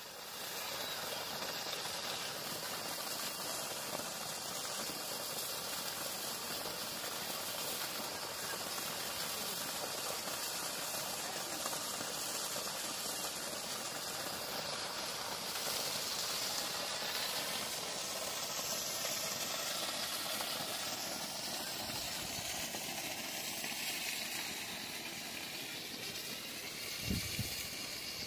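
Steady hiss of a waterfall, water pouring over a cliff edge into a gorge, with a few low bumps near the end.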